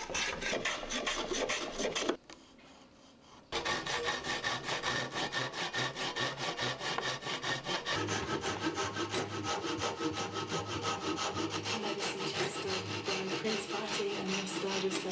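Hand tools working wood: quick, rhythmic rasping strokes of a blade shaving and sawing a wooden pattern, with a brief lull about two seconds in.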